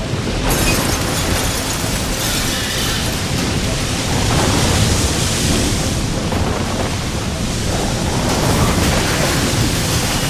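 Loud, steady rushing noise of a storm, its character shifting every two seconds or so.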